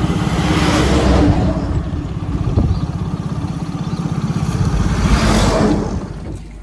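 JCB backhoe loader's diesel engine running with an even low throb. It revs up twice, about a second in and again about five seconds in, then drops away near the end.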